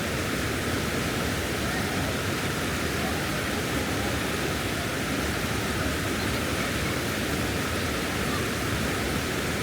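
Constant rushing roar of a large waterfall and the fast river current below it, a steady wash of water noise without a break.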